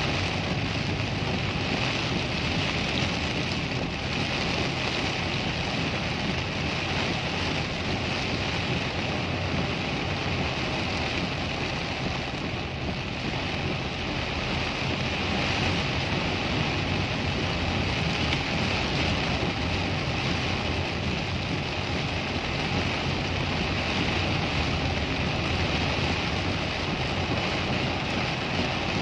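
Heavy rain falling on a car's roof and windshield, heard from inside the cabin, with the car's running and road noise underneath. It is a steady, even wash of noise.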